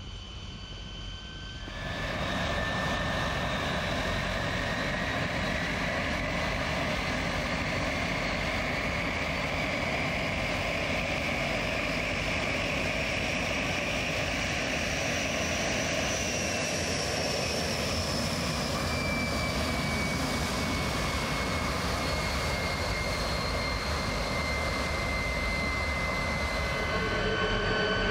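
MiG-15's centrifugal-flow turbojet running on the ground, a loud steady rush of jet noise that cuts in about two seconds in. A whine rides on top of it, climbing slowly in pitch and then sinking back. Near the end the sound turns a little louder, with steadier whine tones.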